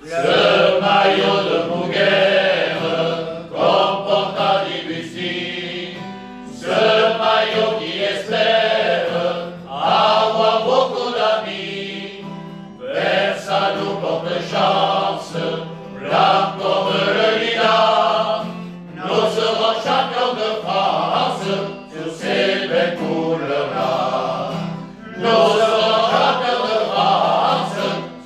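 A men's choir singing a hymn together to acoustic guitar, in phrases of about three seconds with short breaks for breath between them.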